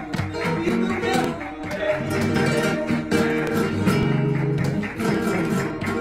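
Two flamenco guitars playing bulería accompaniment together: strummed rasgueado chords with sharp percussive attacks, mixed with picked single notes.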